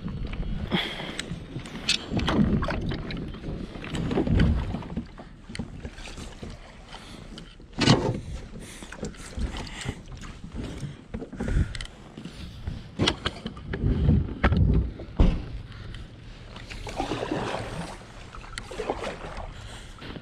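Plastic fishing kayak being launched and got under way: irregular knocks and bumps on the hull and gear, the sharpest about eight seconds in and several more in quick succession later, over low rumbling.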